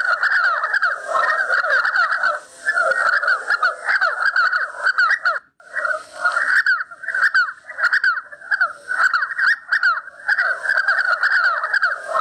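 Partridges calling: a dense, continuous run of rapid, rasping, overlapping calls, broken by a brief gap about five and a half seconds in.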